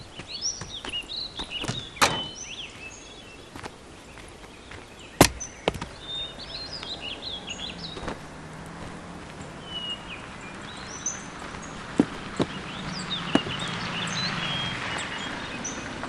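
Forest ambience with birds chirping and a few sharp knocks, the loudest about two and five seconds in. From about halfway through, a car approaches, its engine and tyre noise growing louder toward the end.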